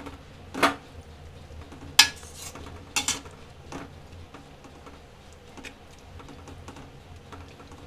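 Perforated steel spatula knocking and scraping against a stainless-steel kadhai while stirring grated bottle gourd in milk: a few sharp metal clinks, the loudest about two seconds in, with fainter ticks between.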